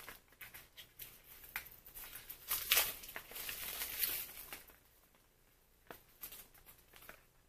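Rustling, scraping and light taps of a small paper cosmetics box being handled and opened, busiest in the middle and dying down near the end.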